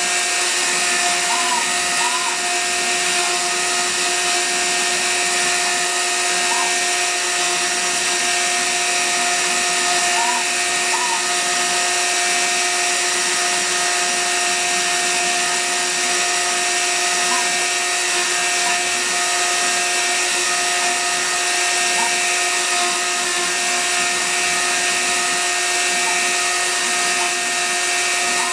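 CNC router carving wood, its spindle motor running with a steady, even whine, while short rising-and-falling whines come and go over it now and then.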